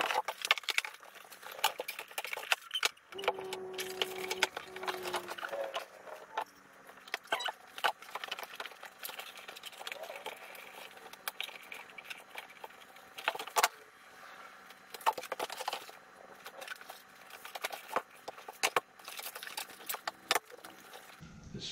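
Cardboard subscription box and its fold-out printed insert being handled: panels flexing, folding and tapping on the tabletop, with many short clicks and rustles.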